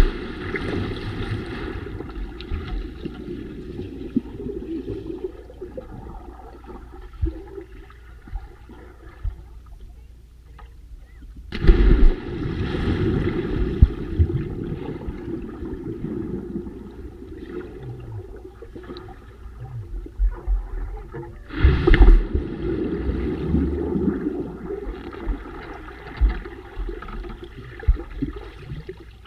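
Splashing and bubbling heard underwater, muffled: three sudden plunges into the water, at the start, about 12 seconds in and about 22 seconds in, each followed by a rush of bubbles that slowly dies down.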